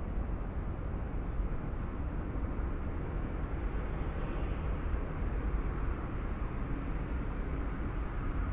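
City street ambience: the steady, low-pitched noise of passing traffic, swelling slightly midway.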